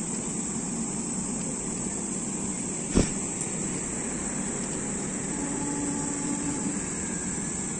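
LHB passenger coaches of an express train rolling past at speed: a steady noise of wheels on rail, with one sharp clack about three seconds in.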